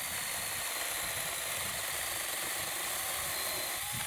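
Steady, even mechanical running noise from a small motor.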